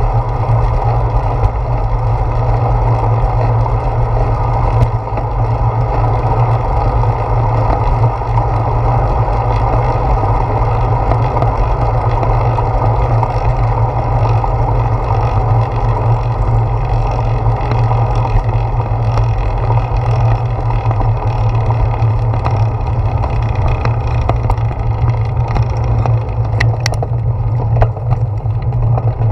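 Steady wind rush and road noise on a handlebar-mounted GoPro Hero 4 riding a bicycle along a concrete path, with a deep low rumble throughout. A few sharp clicks and rattles come near the end as the bike crosses a road.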